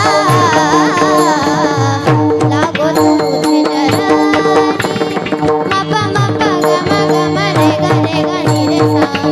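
Kirtan devotional music: a sung melody for about the first two seconds, then instruments carry the tune over steady held drone notes, with a hand drum beating a steady rhythm throughout.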